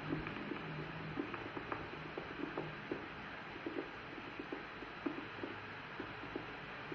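EMG machine loudspeaker playing irregular short pops over a steady hiss, spontaneous potentials picked up by a needle electrode in a hand muscle of a patient with ALS. Such spontaneous discharges (fasciculations and fibrillations) are the sign of active denervation.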